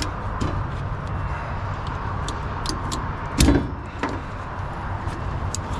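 Ratchet strap being worked loose on a flatbed trailer: scattered metal clicks and one loud clunk about three and a half seconds in, over a steady low engine idle.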